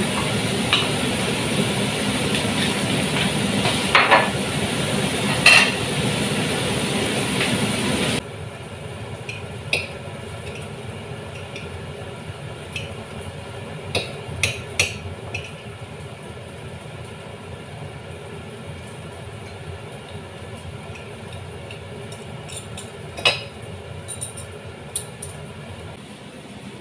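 Kitchen utensils clinking against a cooking pot over a steady hiss, as boiled chicken is lifted out to be shredded. About eight seconds in the hiss drops suddenly, and light clicks and taps of a fork on a plate follow while the chicken is pulled apart.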